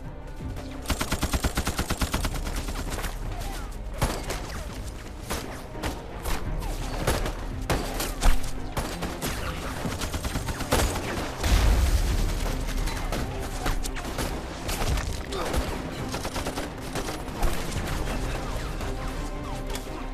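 Film battle sound effects: rapid machine-gun bursts and scattered rifle shots, a fast even volley about a second in, with a deep low thud about eleven seconds in.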